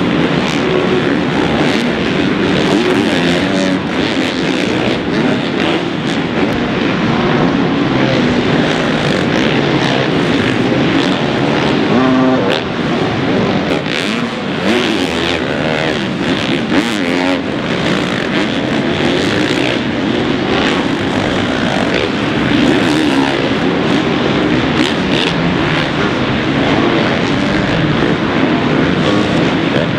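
Motocross bikes riding a dirt supercross track, their engines revving up and down with the throttle, several bikes at once, with the pitch rising and falling.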